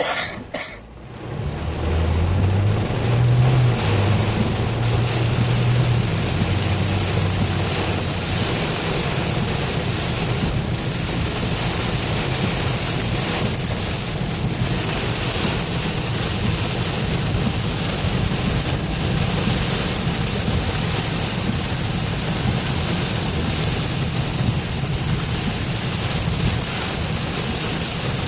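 Heavy rain pelting a moving car and its tyres swishing through standing water, heard from inside the cabin as a steady, dense rush of noise. A low hum runs under it for the first several seconds.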